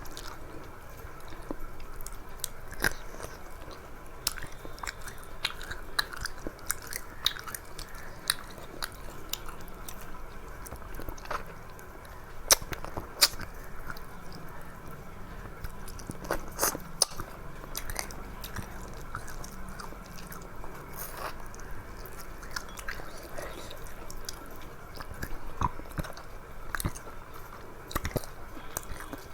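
A person chewing and eating a meal, close to the microphone, with frequent irregular wet clicks and smacks and an occasional crunch.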